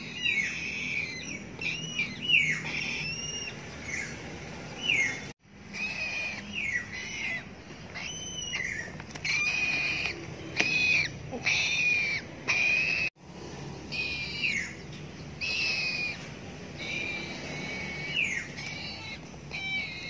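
Young parrot chicks, a yellow-crested cockatoo and a blue-and-gold macaw, calling over and over in short, shrill, whistle-like cries, some of them bending down in pitch. The sound cuts out abruptly about five and about thirteen seconds in.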